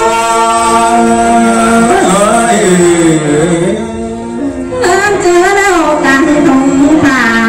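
A woman sings a Thai (Tai) folk song into a microphone in long, wavering held notes. For a couple of seconds in the middle, a lower man's voice takes the line.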